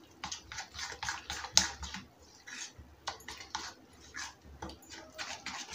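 A metal spoon beating thick besan (gram-flour) pakora batter in a bowl: irregular clicks and wet scrapes of the spoon against the bowl, a few a second.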